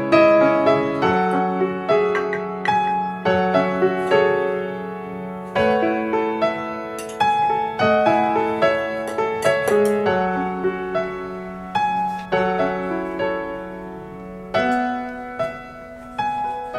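Piano music: notes and chords struck one after another, each dying away as it rings.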